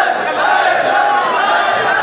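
A crowd of men shouting and cheering together in acclaim, many voices overlapping in a loud, sustained clamour.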